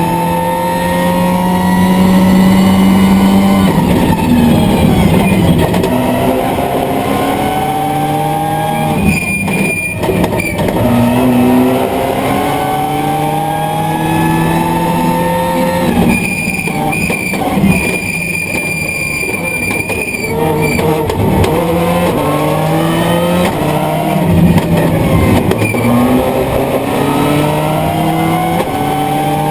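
Subaru Impreza S11 WRC's turbocharged flat-four engine driven hard, its pitch rising again and again as it pulls up through the gears. Twice it lifts off for a few seconds, with a high steady whistle while off the throttle, before pulling hard again.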